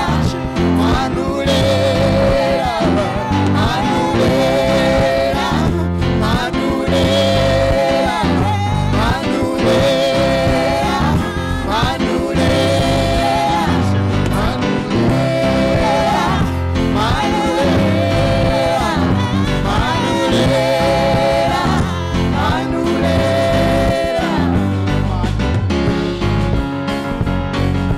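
Live women's gospel choir singing praise through microphones over an amplified band accompaniment, in held notes with vibrato and phrases repeating every couple of seconds.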